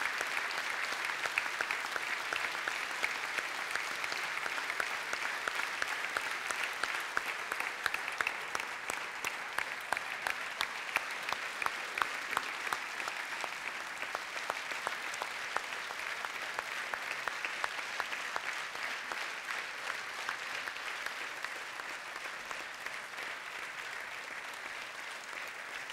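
A large audience applauding: dense, steady clapping that slowly dies down toward the end.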